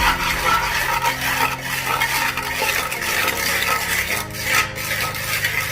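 Steel trowel scraping and spreading parging mortar over a stone pier in repeated strokes, a continuous gritty scrape.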